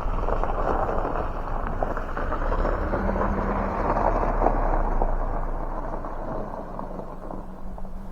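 Strong wind buffeting the microphone, a steady low rumble and rushing that eases off slightly near the end.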